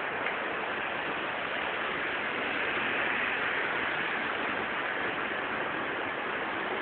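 Heavy rain falling steadily on a street and its wet road, with a vehicle passing over the wet tarmac about three seconds in.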